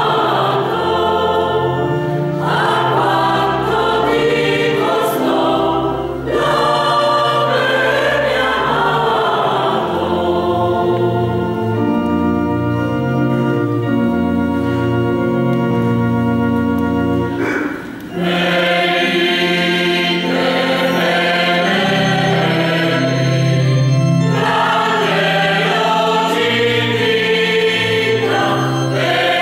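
Mixed choir of women's and men's voices singing a Christmas piece in parts. Chords are held steadily from about ten to seventeen seconds in, with brief breaks in the singing near six and eighteen seconds.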